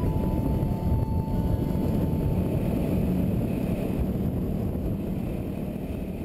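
Wind buffeting the microphone on a moving Yamaha WR250R dual-sport motorcycle, with the bike running underneath; the rush eases slightly toward the end.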